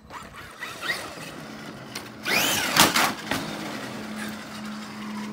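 Electric RC monster truck's motor whining up and then down in pitch as it accelerates and backs off, about two seconds in. This comes over a rough rushing of the tyres and is followed by a steady low hum.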